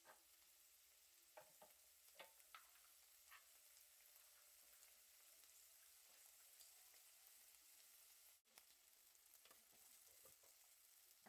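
Faint sizzling of food frying in a pan, with scattered short scrapes and taps of a utensil stirring it. A brief break in the sound comes about eight seconds in.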